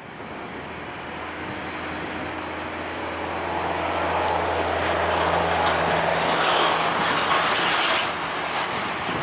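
Boeing 737-800 jet with CFM56-7B engines passing, a steady roar with a low hum and a high hiss that grows louder to its peak near the end, then eases slightly.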